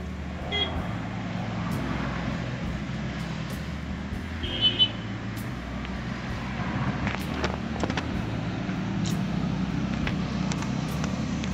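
A motor vehicle engine idling steadily. There is a short high beep soon after the start and a louder pair of beeps about four and a half seconds in.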